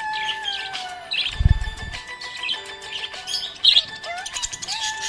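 Budgerigar chirping and twittering in many short, high chirps over a looping background melody, with a low thump about one and a half seconds in.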